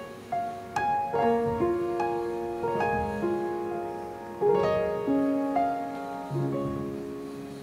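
Background music: a slow piano melody, single notes and chords struck one after another and left to ring.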